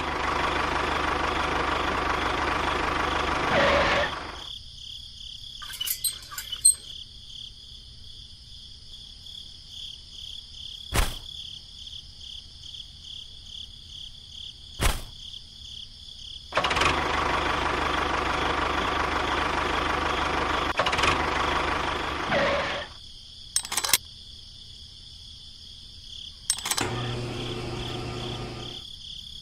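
A small engine running in two stretches, about four seconds at the start and about six seconds near the middle, with a few sharp clicks in the quiet gaps. A steady high chirping of crickets continues underneath.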